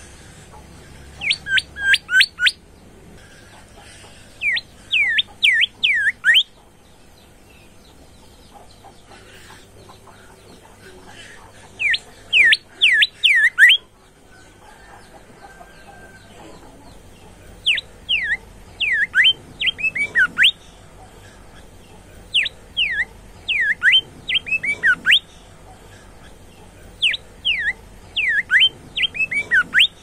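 A caged bimoli bulbul singing. It gives about six short bursts of quick, sharp, downward-slurred whistled notes, each burst a run of four to eight notes, with pauses of a few seconds between bursts.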